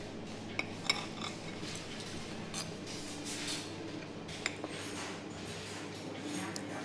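Metal knife and fork cutting through toast on a ceramic plate, with a few sharp clinks of cutlery against the plate, the loudest about a second in and another about four and a half seconds in.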